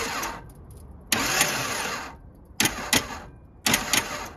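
Starter motor on a 1978 Datsun 280Z's L28 inline-six bumped four times in short bursts, each opening with a sharp click and then a fast whir as the engine spins over freely with its spark plugs out.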